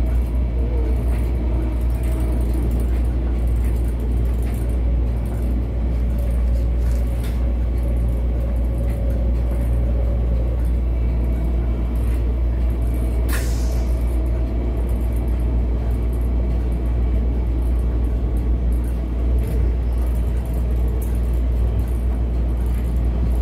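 Steady low rumble of a passenger train car in motion, heard from inside the car, with a faint steady hum above it. A single short, sharp noise about halfway through.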